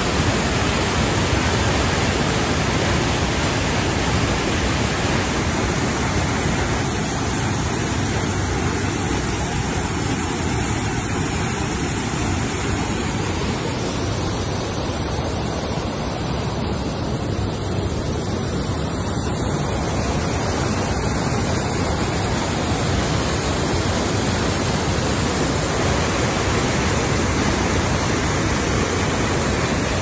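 River water rushing through white-water rapids, a loud steady rush with no breaks.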